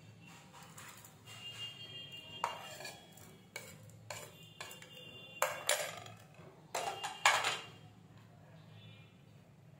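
A steel spoon scraping and tapping against a plastic plate and a glass bowl as chopped onion is pushed off the plate, making a series of clinks and scrapes. The loudest come in two clusters a little past the middle.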